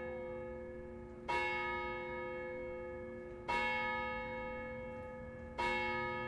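The Graz clock tower's bell striking, three strokes about two seconds apart, each ringing on and fading into the next.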